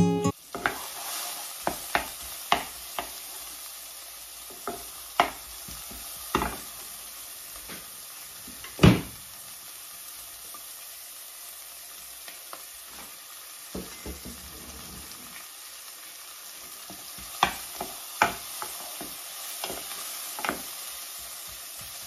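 Chopped onion sizzling in hot vegetable oil in a skillet: a steady hiss, with scattered sharp clicks and knocks of a wooden spatula and the onions against the pan, the loudest about nine seconds in.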